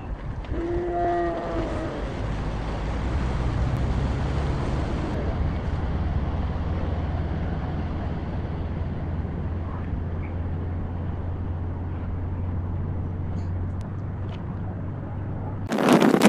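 Speedboat engine running with a steady low drone under the hiss of water as the boat pulls away and turns at speed, with a brief pitched call about a second in. Near the end the sound jumps to loud wind buffeting the microphone aboard the moving boat.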